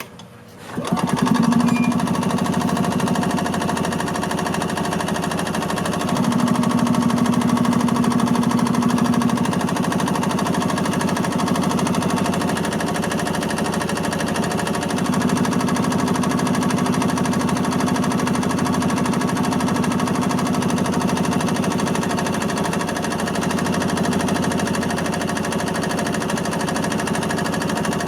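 A 1986 Yamaha G1 golf cart's two-stroke gas engine starts about a second in and keeps running with a steady rattling note, louder for a few seconds twice. It is running again after its carburetor was cleaned, which cured a crank-but-no-start fault.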